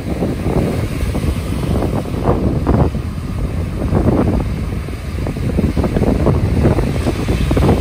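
Wind gusting on the microphone over waves breaking on the shore, in uneven surges.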